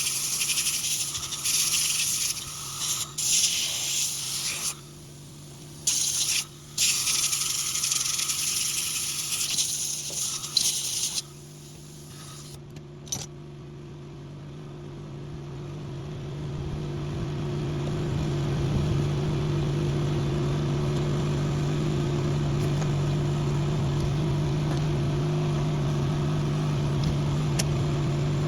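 A hissing spray, switched on and off in bursts for about the first ten seconds. Then a steady low engine hum swells and holds, like an engine idling.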